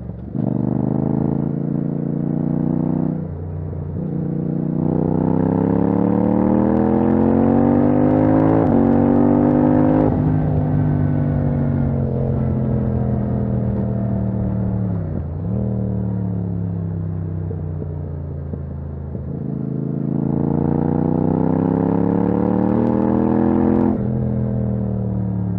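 Yamaha MT-07's parallel-twin engine through a titanium Akrapovic exhaust with no dB killer, pulling hard and rising in pitch, with a sharp drop at an upshift about three seconds in. It climbs again through the gears, then eases off and winds down for several seconds with a brief dip in the middle, before accelerating again and upshifting near the end.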